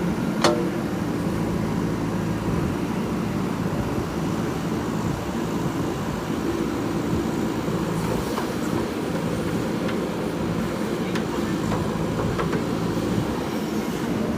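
Diesel engine of a JCB 3DX backhoe loader running steadily under work, with a sharp metallic clank about half a second in and a few fainter knocks later.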